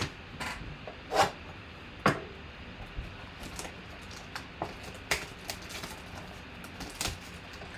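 Plastic shrink-wrap being torn and peeled off a cardboard trading-card box: irregular crinkling and sharp crackles, the loudest about a second in, two seconds in, five seconds in and seven seconds in.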